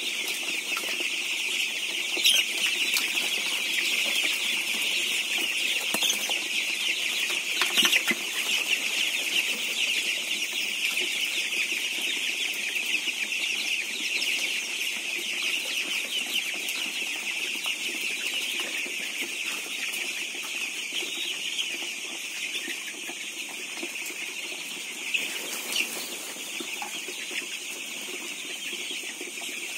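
A large flock of 15-day-old broiler chicks peeping all together in a dense, steady chorus, with a few brief knocks over it.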